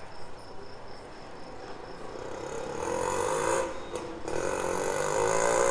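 Street traffic noise: a vehicle engine comes close, its wavering drone growing louder through the second half.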